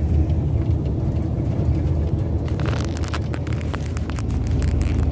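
MAN truck's diesel engine and road noise heard inside the cab: a steady low drone while cruising in twelfth gear.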